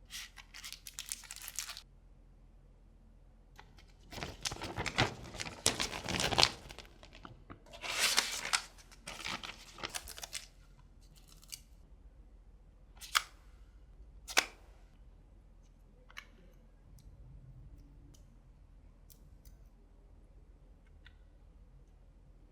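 Earbud retail packaging being torn open and handled, in three stretches of ripping and rustling, followed by a few separate sharp clicks.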